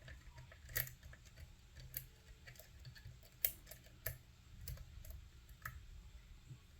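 Faint, irregular clicks and ticks of a lock pick working the pins inside an Assa 700 pin tumbler lock, one sharper click about three and a half seconds in.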